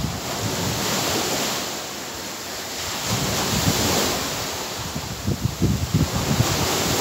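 Sea waves washing in and breaking against a concrete seawall, the surf swelling and easing in surges. Wind gusts buffet the microphone, strongest in the second half.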